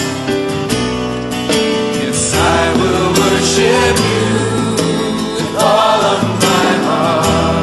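Background music: a gospel-style worship song, with a singing voice over guitar and a steady beat.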